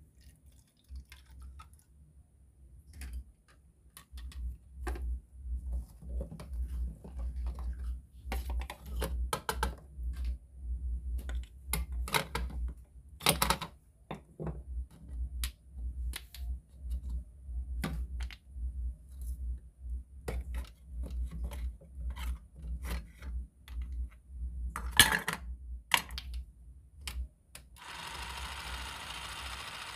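Plastic and wooden toy kitchen pieces clicking and knocking irregularly as they are handled and set down. Near the end a battery-powered toy hand mixer switches on and runs with a steady whir.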